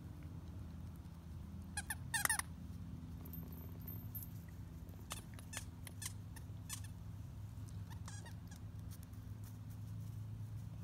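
A few short, wavering, high-pitched squeals while two huskies play tug with a toy, the loudest about two seconds in and another near eight seconds. Faint short ticks come between them, over a steady low hum.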